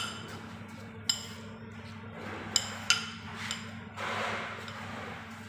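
A metal spoon clinking against ceramic dishes, five short ringing clinks in the first three and a half seconds, then a soft wet stirring rustle as diced salad in dressing is mixed in the bowl. A steady low hum runs underneath.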